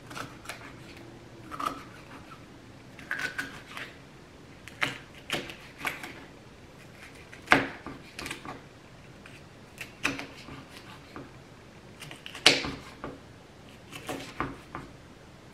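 Kitchen knife cutting a pepper on a cutting board: irregular knocks of the blade against the board, singly or in small clusters every second or two.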